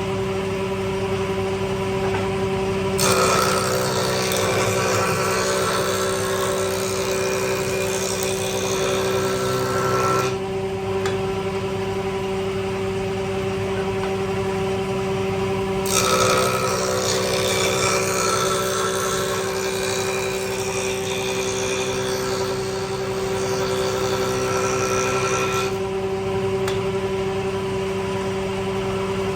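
An electric power tool runs steadily with a constant motor hum. Twice it works the wood for several seconds at a time, adding a rough, louder noise over the hum.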